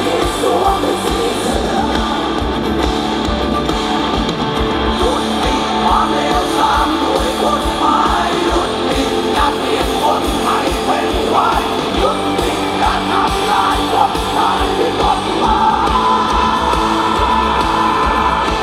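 Live rock band playing a song through a large PA, heard from within the audience: a singer over electric and acoustic guitars, with drums keeping a steady beat.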